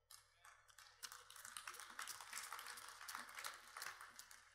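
Faint applause from a congregation: many hands clapping irregularly, swelling about a second in and dying away near the end.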